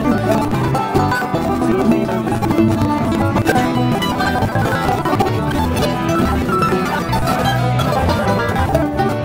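A bluegrass band playing live, with banjo, acoustic guitar and mandolin picking a tune together at a steady, even loudness.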